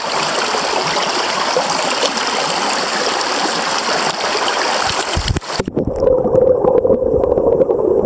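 Small mountain stream running over rocks, a steady close rush of water at the surface. A little over five seconds in it switches abruptly to the muffled sound of the same stream heard underwater, a dull, murky rush.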